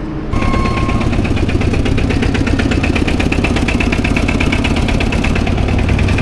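A motorcycle engine comes on suddenly just after the start and runs at a steady, evenly pulsing idle. A short steady tone sounds briefly at the same moment it starts.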